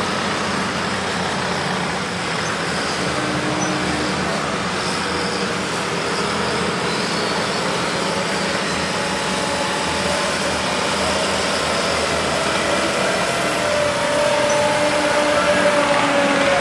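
A tractor engine running hard under load during a tractor pull: a loud, steady drone whose pitch shifts in the last few seconds.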